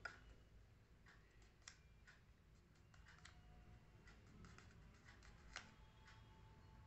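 Near silence, broken by a few faint clicks and taps of paper being handled and pressed.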